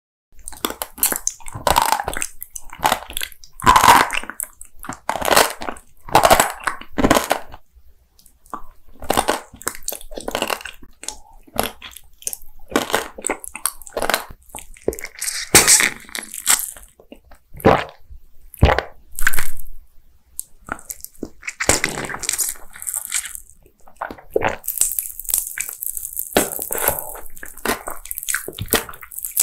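Close-miked mouth eating sounds: repeated sharp crunches and bites into hard candy and sprinkles, with chewing in between, irregular and one after another. Near the end a stretch of high, steady crackling hiss.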